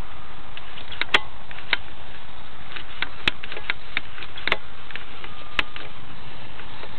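Wind on a small camera microphone: a steady hiss broken by scattered sharp clicks and crackles.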